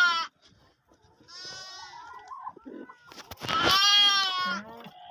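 Sheep bleating: the end of one bleat at the start, a fainter bleat about a second in, and a loud, wavering bleat a little past three seconds.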